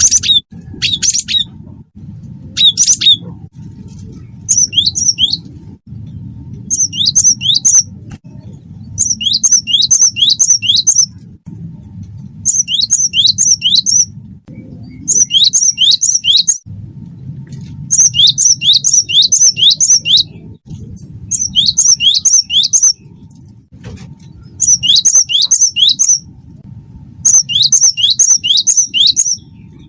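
A cinereous tit (gelatik batu) singing steadily. Its song comes in repeated phrases of three to six sharp whistled notes, each falling quickly in pitch, one phrase every couple of seconds, over a steady low hum.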